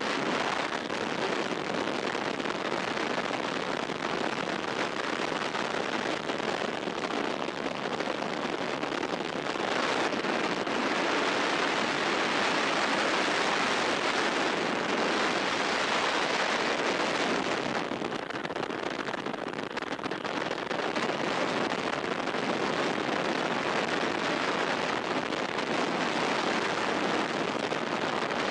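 Freefall wind rushing over the camera microphone in a tandem skydive: a steady, dense hiss with no let-up, a little louder for several seconds around the middle.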